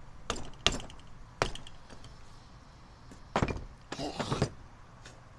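Hammer striking a carburetor body to knock a float bowl loose: a few sharp metallic taps in the first second and a half, then two louder clattering bursts about three and a half and four seconds in as parts shift and come free.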